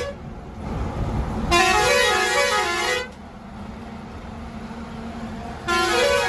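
Truck musical horn playing a short stepping tune of rising and falling notes, once at the very start, again for about a second and a half after a second and a half, and again near the end, over the steady low rumble of a truck running on the road.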